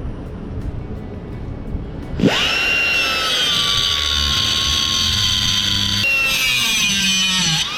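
Angle grinder with a cutoff wheel spinning up about two seconds in, then running with a steady high whine. Its pitch sags as the wheel bears into the metal of a control arm, dropping further near the end.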